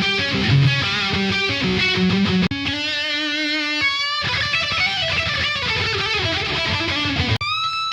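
Distorted electric lead guitar through the RedTone amp-sim plugin, with hall reverb, playing a metal solo over a backing track: a long held note about a third of the way in, a bend up, a fast descending run, then another note bent up near the end.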